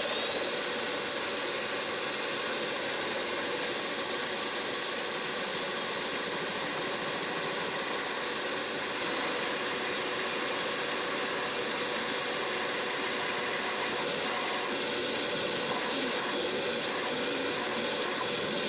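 Shop vacuum running steadily with its nozzle at the bit, while a cordless drill with a taper bit slowly cuts a half-inch hole through a metal UTV clutch cover. A high, thin whine steps up and down a little now and then.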